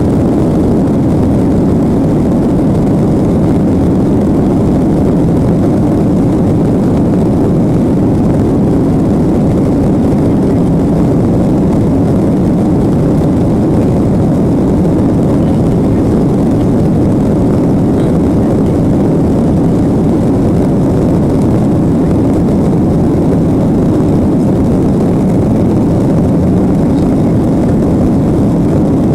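Steady, loud jet engine noise from a Southwest Boeing 737, heard from inside the passenger cabin as the airliner takes off or climbs out.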